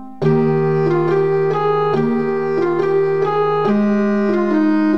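Background music: an electronic keyboard playing a melody of held, organ-like notes over sustained chords, starting again after a brief break at the very beginning.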